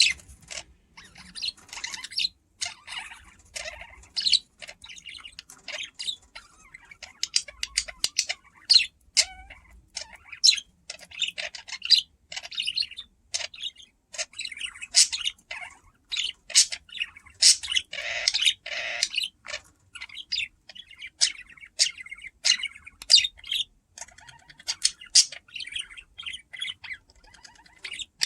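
Budgerigars chirping and chattering continuously, mixed with many short sharp clicks of beaks cracking and husking seeds.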